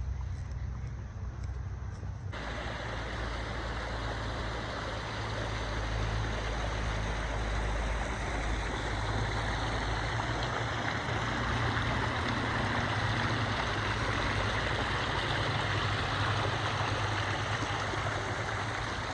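Steady rushing of the Lech waterfall's falling water, with a deep rumble underneath, starting abruptly about two seconds in.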